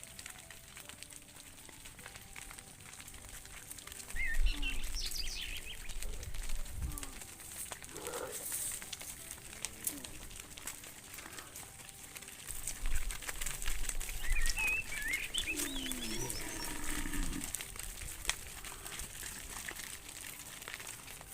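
Cattle out in a muddy field: scattered clicking and rustling, and a low bovine call, a dropping then rising moo, about three-quarters of the way through. Birds chirp briefly twice, and wind rumbles on the microphone at times.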